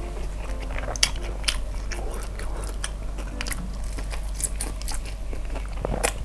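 A person biting into and chewing a fried shrimp spring roll (lumpia udang), close to a clip-on microphone: irregular crisp crunches and chewing clicks.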